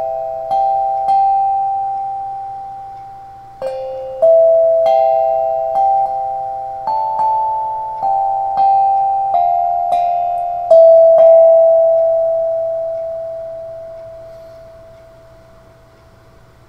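Eight-note, 6-inch steel tongue drum in the key of C struck one note at a time with a ball-tipped mallet, playing a slow melody; each note rings on and overlaps the next. Near the end the last note is left to ring and fade away.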